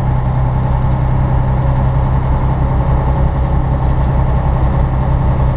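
Semi-truck diesel engine running steadily while driving, heard from inside the cab as an even low drone with road noise.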